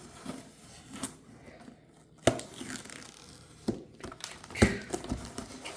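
Packaging of a boxed model airplane being handled and opened by hand: crinkling and tearing, broken by several sharp knocks, the loudest about two seconds in.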